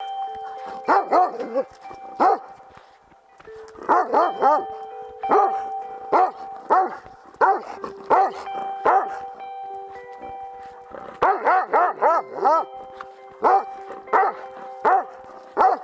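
A Doberman Pinscher barking over and over, with more than twenty sharp barks, some in quick runs of three or four and some single, with short pauses between the runs.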